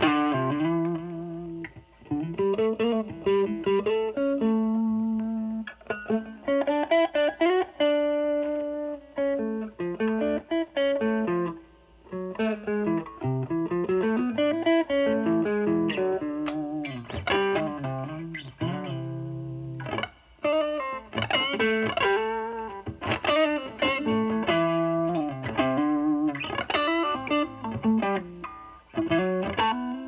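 Stratocaster with single-coil pickups played through a DOD FX102 Mystic Blues Overdrive with its drive knob full, into a Marshall Valvestate's overdrive channel, with the tone cleaned up. It plays blues single-note licks with string bends and a few chords, with short pauses between phrases.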